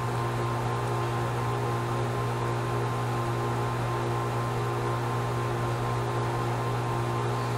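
Steady machine hum: a constant low drone with a few fixed higher tones over an even hiss, unchanging throughout.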